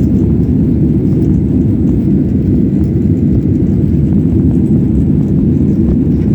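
Steady, loud cabin roar of a Boeing 767-300ER climbing out after takeoff: engine and airflow noise heard from inside the cabin, deep and even, with no change in level.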